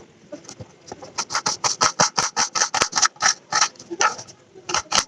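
Chickens clucking in quick repeated calls, about four to five a second, with a short lull near the end before they pick up again.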